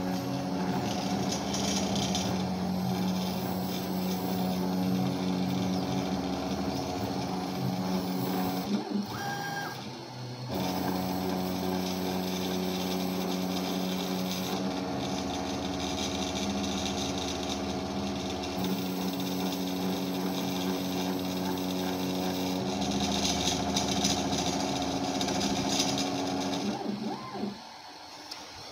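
The 500 W spindle of a home-built CNC router runs steadily while milling a test circle and square into a sheet. The sound breaks off for about a second around nine to ten seconds in, and falls away near the end.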